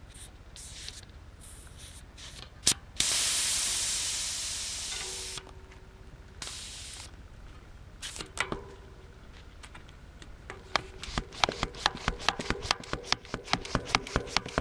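Air hissing out of a bicycle tyre valve for about two seconds, fading as it goes, then a shorter hiss. Later, a Barbieri Visionair mini hand pump fitted on the valve is worked in quick strokes, several a second.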